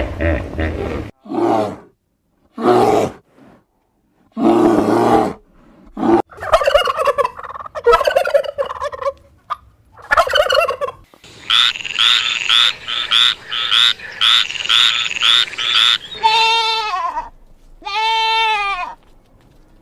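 A series of different animal calls, separated by short pauses. In the middle comes a run of rapid high calls repeated about twice a second, and near the end two drawn-out calls with a wavering pitch.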